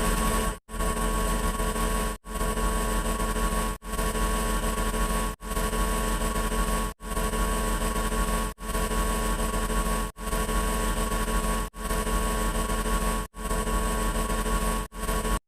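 A steady, engine-like droning sound effect, played about ten times in a row as identical clips of about a second and a half, each cut off by a brief gap.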